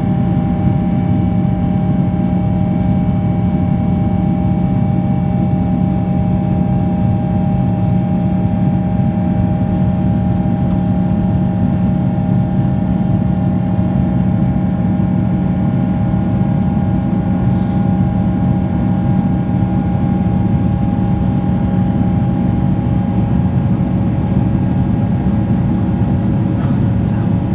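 Steady cabin drone of a Boeing 777-300ER's GE90-115B turbofans in the climb, heard from a seat beside the engine: a low hum with a few steady whining tones above it.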